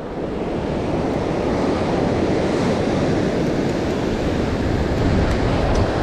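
Ocean surf washing steadily through the shallows, with wind rumbling on the microphone.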